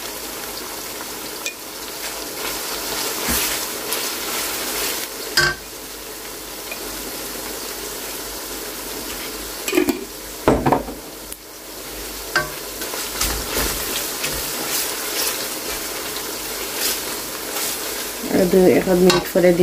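Sliced onions and whole spices sizzling in hot oil in an aluminium pot, just turning light brown. A wooden spatula stirs and scrapes through them, with a couple of louder knocks about halfway through.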